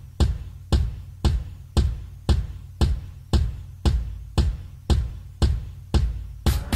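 Background music: a steady drum beat of about two beats a second with a deep bass kick. The music fills out into a busier arrangement near the end.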